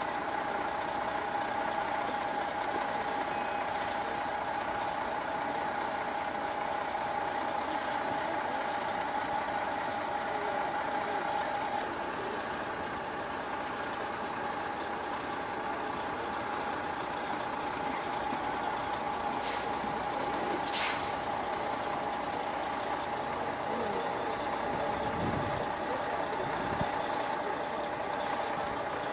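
Idling tour coach: a steady mechanical whine of several pitches, with two short air hisses about two-thirds of the way through, typical of air brakes.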